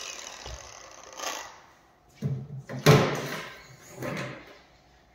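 Angle grinder with a cutting disc winding down after a cut through steel tube, fading away over about two seconds. Then three clunks of hard objects being handled or set down, the loudest about three seconds in.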